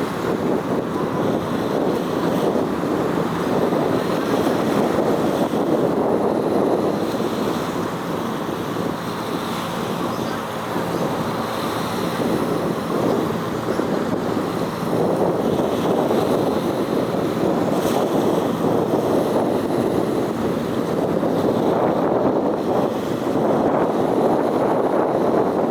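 Steady rushing noise of wind on the microphone with water washing, and a faint low hum underneath.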